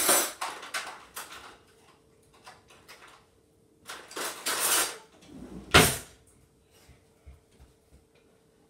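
Household objects being handled: a quick run of clatters and rustles, then a longer scraping rustle, then one loud sharp knock about six seconds in. A faint steady hum sits underneath.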